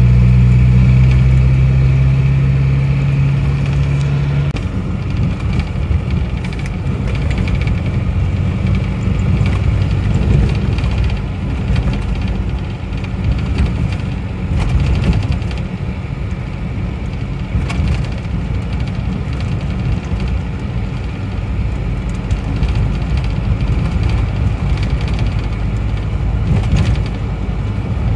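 Old Isuzu Panther van driving, heard from inside the cab: a steady engine hum for the first four seconds or so, then a rougher road rumble from engine and tyres, with occasional short knocks and rattles.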